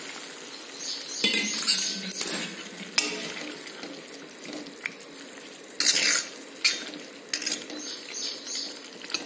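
Hot water poured into a pan of simmering sprouted-lentil usal, then a steel ladle stirring it, scraping and clinking against the metal kadhai in irregular strokes.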